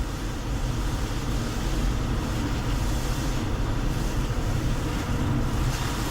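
Steady road and engine noise of a car driving, heard from inside the cabin as a continuous low rumble.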